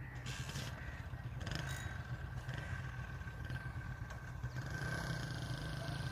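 Boat engine running steadily: a low, even hum with a faint steady whine above it.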